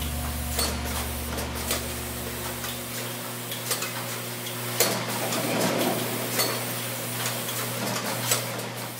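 Vitamin-bottling line machinery, a rotary bottle table and a SureKap capping machine, running. There is a steady machine hum with irregular sharp clicks and clatter of plastic bottles, the loudest about five seconds in.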